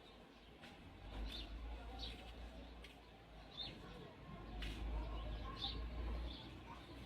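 A small bird chirping, short high calls repeated about once a second, over a low rumble.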